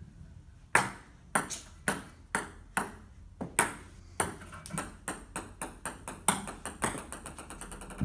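Ping-pong balls bouncing on a table-tennis table: a string of sharp taps about every half second, and near the end a ball bouncing faster and faster as it settles.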